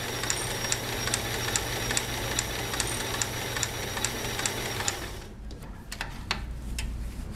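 Kenmore 158.141 zigzag sewing machine, with its 1.3-amp motor, running steadily as it sews a decorative stitch, with a light tick a little over twice a second. It stops about five seconds in, followed by a few sharp clicks.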